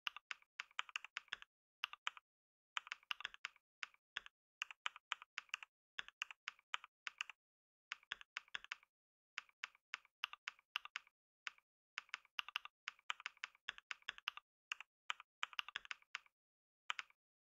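Typing on a computer keyboard: fast runs of key clicks, word by word, with short pauses between runs, stopping near the end.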